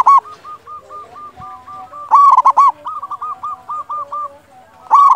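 Zebra dove (perkutut) cooing. Loud bursts of a few arched notes come about every two and a half seconds, and each burst is followed by a quicker run of softer notes.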